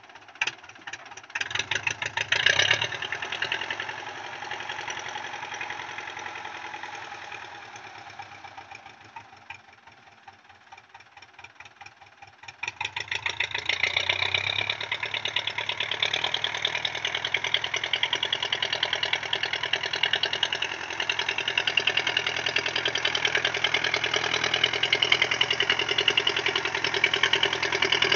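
Belarus 510 tractor's diesel engine running with a rapid, even clatter. It fades to faint for a few seconds, then comes back loud about halfway through and stays loud as the tractor approaches.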